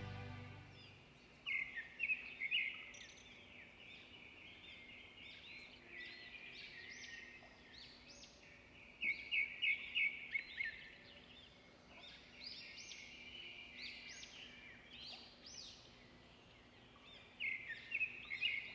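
Small birds chirping and calling, with clusters of quick high chirps about a second and a half in, around nine seconds in and again near the end, and fainter calls in between.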